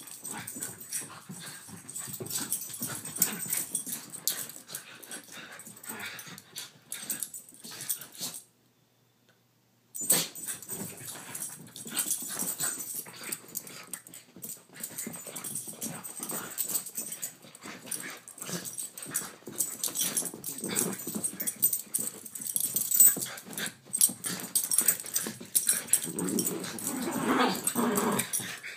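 Two dogs play-fighting: growling and heavy breathing over a busy scuffle of paws and bodies. The sound drops out for about a second and a half some eight seconds in, and there is a louder growling stretch near the end.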